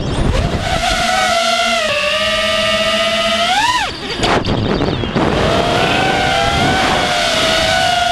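Brushless motors of a 5-inch FPV racing quadcopter (Diatone Roma F5 V2) whining as heard from the drone's own camera, the pitch following the throttle. A steady whine sweeps sharply upward about three and a half seconds in, dips briefly, then runs on as several slightly different pitches wavering against each other, over a steady rush of noise.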